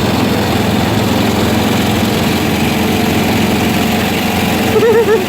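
A vehicle engine running at a steady idle. Near the end a short wavering pitched sound rises over it.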